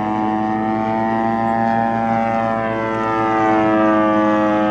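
DLE 55 single-cylinder two-stroke gasoline engine of a large radio-controlled Tiger Moth biplane running in flight. Its note rises a little in pitch and grows louder around the middle.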